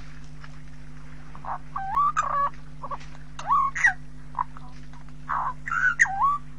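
A bird calling in three short bouts, its notes sliding up and down in pitch, over a steady low hum.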